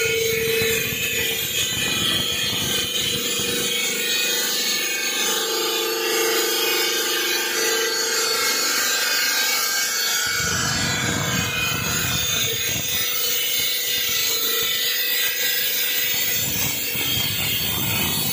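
Bridge-type circular stone saw for marble running with a steady hiss and a faint whine; low rumbling swells come and go from about ten seconds in.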